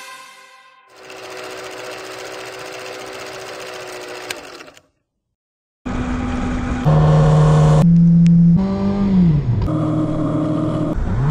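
Music fades out, then a steady hiss lasts a few seconds, followed by a second of silence. A motorcycle engine then runs on the move, its note falling about two seconds before the end and climbing again at the very end.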